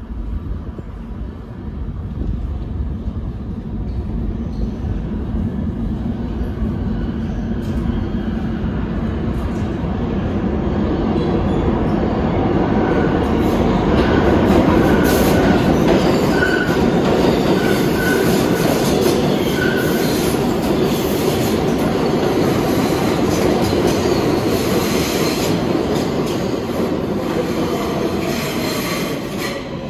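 New York City subway train running through an underground station. The rumble of the wheels builds over the first half and stays loud, with a string of short wheel-squeal chirps in the middle, then eases off near the end.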